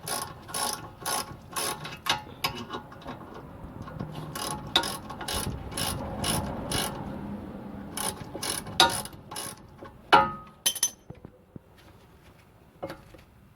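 Hand socket ratchet clicking in quick runs as it turns a bolt on a car's rear brake caliper assembly. A sharp metal clank comes about ten seconds in, and lighter clicks follow.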